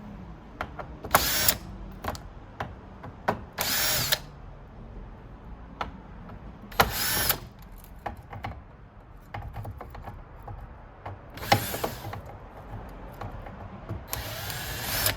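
A cordless power screwdriver runs in five short bursts, backing out Torx screws, with small clicks of handling between the bursts.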